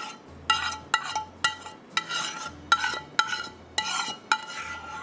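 Metal spoon scraping and knocking against a small metal saucepan as thick garlic sauce is scraped out of it into a frying pan. About two short strokes a second, each leaving a brief metallic ring.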